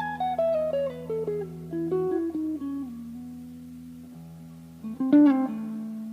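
Greco WS-STD electric guitar played solo. A line of single notes steps down in pitch over a held lower note and settles on a sustained note, then a louder chord is struck about five seconds in.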